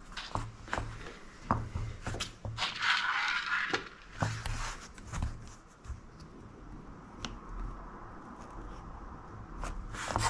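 Hands assembling a small carbon-fibre FPV drone frame with a hex screwdriver: scattered light clicks and taps of screws, tools and frame parts, with a brief scraping rustle about three seconds in.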